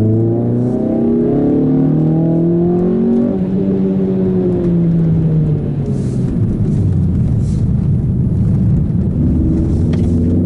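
Renault Clio 197/R27's 2.0-litre four-cylinder engine with an Akrapovic exhaust, heard inside the cabin, pulling and easing through the revs on a downhill run. Its note rises and falls for the first half, turns to a coarse rumble with no clear pitch for a few seconds, then climbs again near the end.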